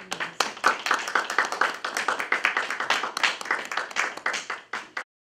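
Audience applauding, a dense run of hand claps that cuts off abruptly near the end.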